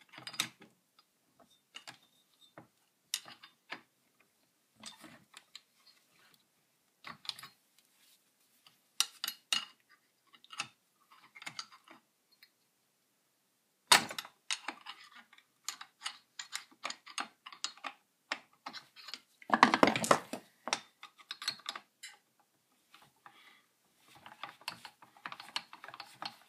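Gloved hands and hand tools working on a small two-stroke chainsaw engine being taken apart: scattered clicks, taps and rattles of small metal and plastic parts. A sharp knock comes about halfway through, and a longer rattling scrape a few seconds after it.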